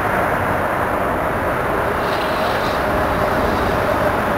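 Steady outdoor rumble and hiss with no distinct knocks or clanks.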